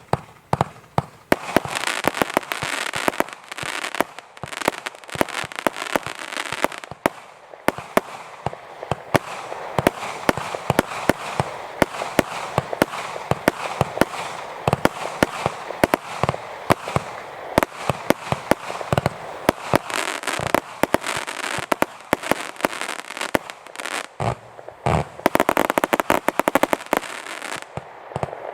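Boss Nasty Black Panther firework cake firing a continuous string of shots, about three a second, each bang followed by crackling. Near the end the shots come in a much faster flurry.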